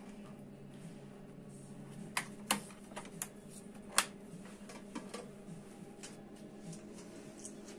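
Sharp plastic clicks and snaps as IV tubing is loaded into a Heaco SN-1800V volumetric infusion pump and its door is shut and latched, the loudest click about four seconds in. A steady low hum runs underneath.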